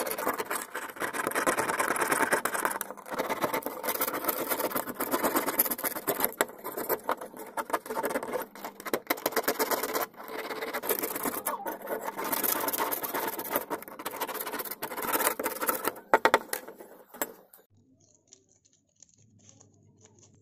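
A metal blade scraping crusted mortar and rust off the steel blade of an old masonry trowel in quick, rasping strokes with sharp scratchy clicks. The scraping stops near the end.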